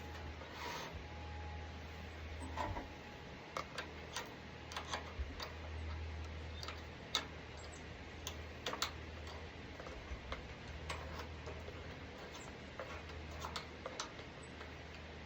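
Irregular light clicks and taps, roughly one a second, from hands handling parts of an old lawn mower's engine area, over a low steady hum.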